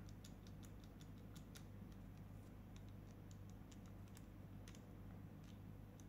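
Faint, irregular light clicks and ticks from hand-held ferrule crimping pliers being worked and handled, over a low steady hum.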